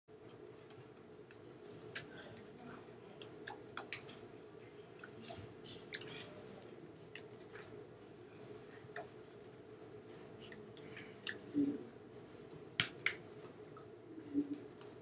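Hands tapping and brushing against each other while signing: scattered soft clicks and taps, a few sharper ones toward the end, over a steady low room hum.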